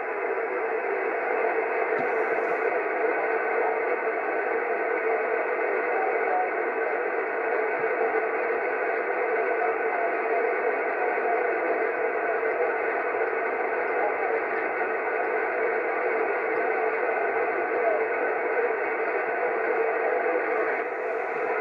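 CB radio receiver on the 27 MHz band giving a steady hiss of static through its speaker, with no clear voice coming through while distant stations fade in and out.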